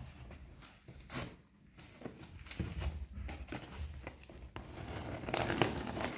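Cardboard carton and plastic wrapping of a boxed TV being torn and crinkled open by hand: a run of short rips and rustles with a few sharp clicks, loudest about five seconds in.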